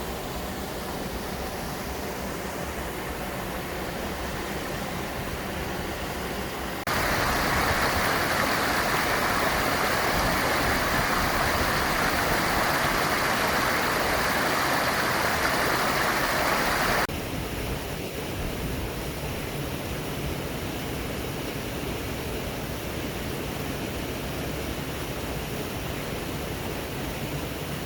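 Rushing water of a mountain stream and waterfall, a steady hiss. It turns abruptly louder and brighter about seven seconds in and drops back just as suddenly about ten seconds later.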